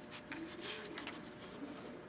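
Faint handling noises: a few soft clicks and a rustle as a small camcorder is turned over in the hand.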